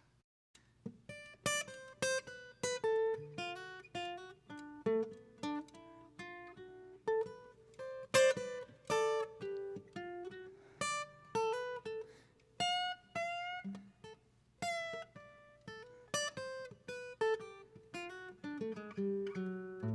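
Guitar playing an instrumental break in a song: a melody of single plucked notes, each ringing and fading, starting after a short pause.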